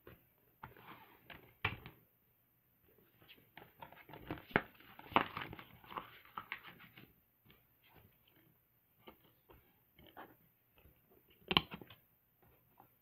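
A plastic DVD case being handled and opened, with scattered clicks and the rustle of its paper booklet, busiest in the middle. There is a sharp click under two seconds in and another near the end, as the disc is worked off the case's centre hub.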